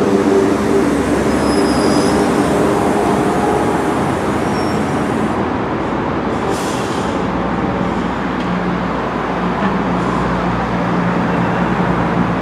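Shenzhen Metro Line 4 CSR Puzhen electric train creeping through its depot: a steady running hum with low tones that fade in the first few seconds and a low tone that comes back about two-thirds of the way in. A short hiss sounds just past halfway.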